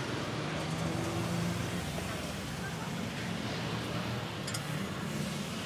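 Steady road traffic noise from the street, with a light click about four and a half seconds in.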